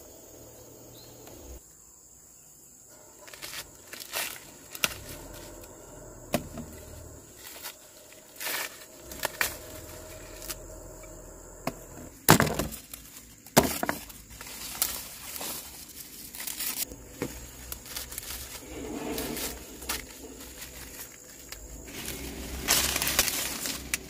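Ears of corn being snapped off dry cornstalks by hand, a series of sharp irregular cracks, the two loudest about halfway through, with dry leaves and husks rustling.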